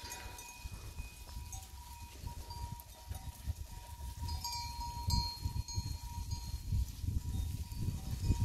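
Bells on a grazing goat herd clinking on and off, light ringing tones over a low, uneven rumble.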